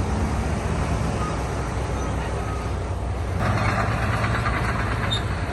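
Heavy diesel earthmoving machinery running steadily with a deep engine drone. A dense, grainy clattering of rock or steel joins in about halfway through.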